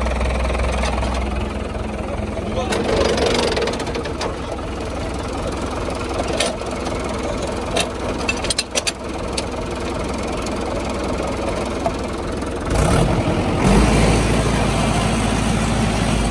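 Mahindra 475 DI tractor's diesel engine running steadily at idle, with a few sharp clicks near the middle. Near the end the engine grows louder and heavier.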